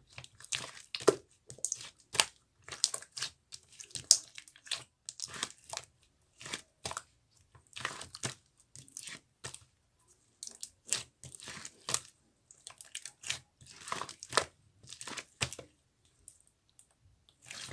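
Silver-pearl marbled slime being squeezed and pressed by hand, giving irregular clusters of crunchy crackles and clicks.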